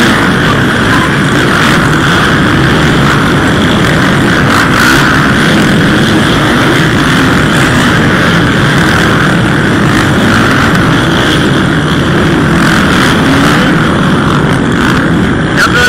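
Small two-stroke motocross bikes of the 65 cc and 85 cc youth classes running at high revs. The engine sound is loud and steady throughout, with the pitch wavering as riders work the throttle.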